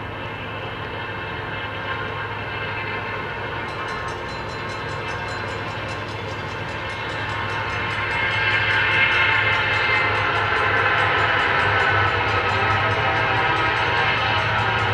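EMD diesel freight locomotive running with a steady low engine drone, getting louder about eight seconds in as the train comes closer.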